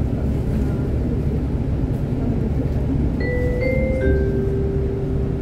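The bus's onboard announcement chime plays about three seconds in: two short notes, then a lower note held for over a second, signalling the automatic stop announcement. Underneath, the bus engine runs with a steady low rumble.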